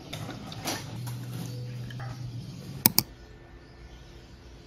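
Almond milk pouring from a carton over ice in a glass, then two sharp clicks in quick succession and a faint steady hum.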